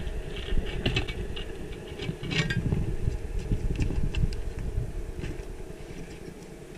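Underwater sound picked up by a diver's camera: a steady low rumble of water with scattered sharp clicks and taps, loudest in the first few seconds and easing off toward the end.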